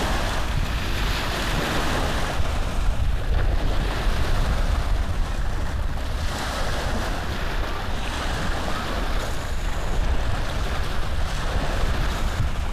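Steady rushing noise that swells and eases, the sound of cross-stitch fabric being handled and rubbing close to the microphone while stitching.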